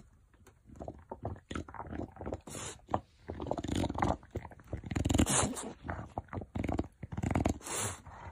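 English bulldog snuffling and breathing heavily as it noses and mouths a blanket, with the fabric rustling, in irregular bursts.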